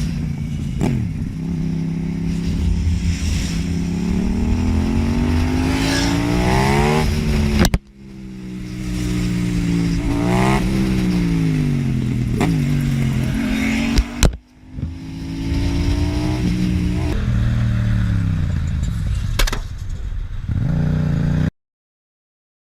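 A motor vehicle engine accelerating hard: its pitch climbs, then falls back at gear changes, over and over, in three stretches broken by abrupt cuts, with a few sharp clicks.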